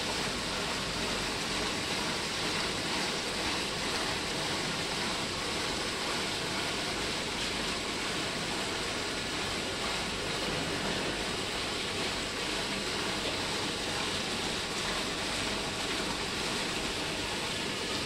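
Steady rush of water flowing through a combi drum filter running a flow test, an even hiss without any beat or pitch.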